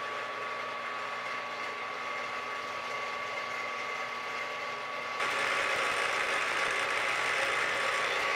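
Milling machine spindle running with a steady whine as a twist drill bores holes in bois d'arc (Osage orange) knife handle scales; about five seconds in the sound gets suddenly louder and hissier, with the bit cutting into the wood.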